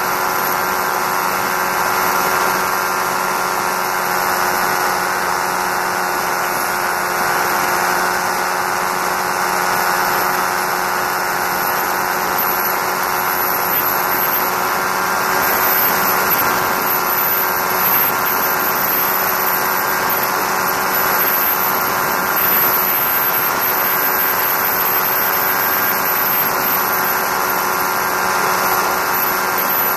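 Engine and propeller of a Challenger II ultralight aircraft running steadily in flight, with wind rushing over the microphone.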